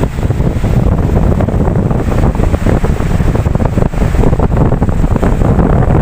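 Ocean waves washing continuously, with wind buffeting the microphone in a heavy, uneven low rumble.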